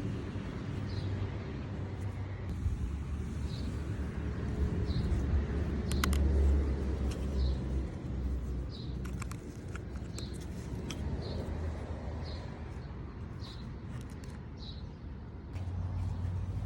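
Steady low rumble with a short high chirp repeating about once a second, and a few sharp clicks around the middle.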